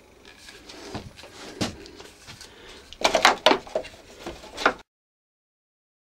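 Handling clatter of hard plastic vacuum-cleaner parts: scattered knocks and clicks, with a cluster of loud knocks about three seconds in, then the sound cuts off to dead silence a little before the end.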